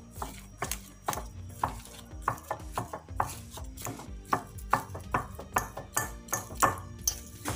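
Metal fork mashing fried potatoes in a glass plate: the tines knock and scrape against the glass about two to three times a second.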